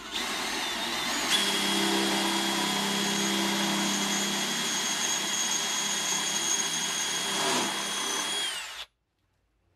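DeWalt cordless drill running steadily, drilling up through a 1/8-inch aluminum plate, its motor whine winding down in pitch as it stops near the end.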